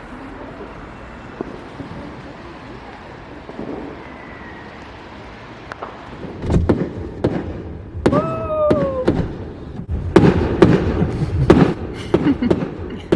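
A steady outdoor hubbub for the first six seconds or so, then a firework display going off: a quick run of loud bangs with crackling from about six seconds in, the densest around ten to twelve seconds in.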